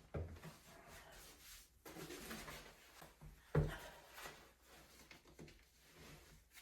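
Quiet handling noise: faint rustling, with a dull knock at the very start and a louder one about three and a half seconds in.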